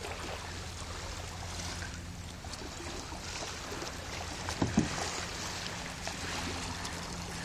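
Kayak paddle strokes and water lapping against a plastic kayak's hull as it glides through shallow water, with a couple of soft knocks a little past the middle.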